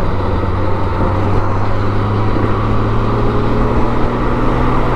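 Large touring motorcycle cruising at highway speed: a steady engine hum under constant wind and road noise.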